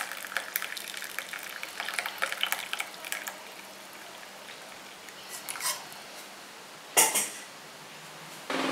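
Hot drink poured from a pan through a stainless steel mesh strainer into a glass cup, splashing and trickling for about three seconds before thinning to a few drips. A single sharp knock about seven seconds in.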